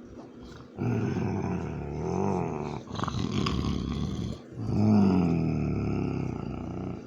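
A police dog growling in two long, rumbling stretches with a short break about halfway through, guarding a pizza bagel.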